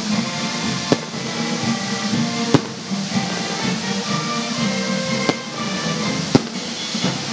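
Fireworks going off over music: four sharp single bangs, about a second in, two and a half seconds in, about five seconds in and about six seconds in. The second and last bangs are the loudest.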